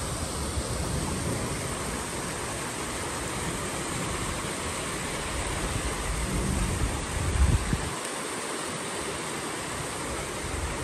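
A small mountain stream rushing and splashing down over rocks in a steady hiss. A low rumble comes and goes under it, strongest about seven seconds in, and drops away near eight seconds.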